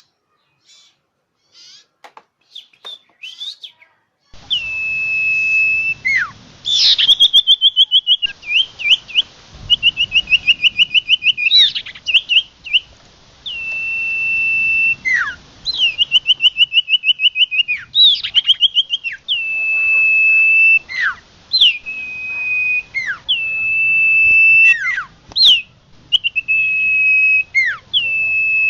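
Common iora (cipoh) song used as a trapping lure call: long level whistles, each ending in a sharp downward slur, alternating with rapid trills of about ten notes a second. Faint short chirps come first, and the loud, clear song starts about four seconds in.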